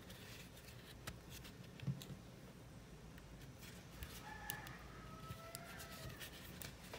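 Faint handling sounds of crochet work: light clicks of the hook and yarn, with a soft knock about two seconds in. A faint drawn-out animal call sounds in the background about four seconds in, a short note followed by a longer, slightly falling one.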